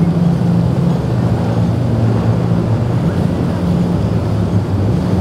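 Twin Mercury 350 outboard engines on a Mako center-console boat running at speed through rough water, a steady low engine drone under a hiss of wind and rushing water.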